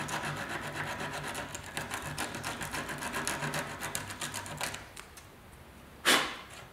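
80-grit sandpaper rubbed by hand back and forth over the metal of a Chevy van radiator, quick rasping strokes several a second, taking corrosion off around pinholes so the solder will stick. The strokes stop about five seconds in, and near the end comes one short, loud rush of noise.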